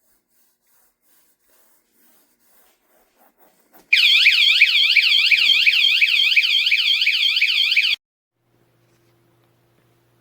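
Wsdcam 113 dB motorcycle alarm sounding: a loud, high electronic siren warbling rapidly up and down, about four sweeps a second. It starts abruptly about four seconds in, runs for about four seconds and cuts off suddenly. A few faint clicks come just before it.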